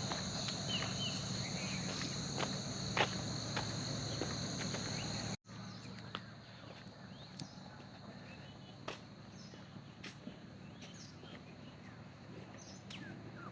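Steady high-pitched insect drone with scattered light clicks. About five seconds in it cuts off abruptly, leaving quieter outdoor ambience with a few faint bird chirps.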